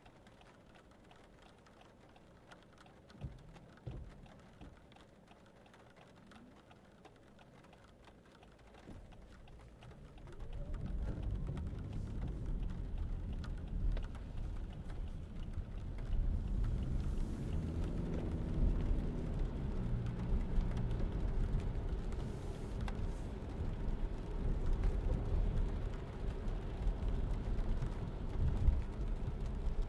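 Interior sound of a 2022 Lexus ES300h hybrid driving in the rain: quiet at first with a couple of light knocks and rain on the car. About ten seconds in, a low rumble of tyres on wet road and the drivetrain builds up and carries on, its pitch rising and falling a little.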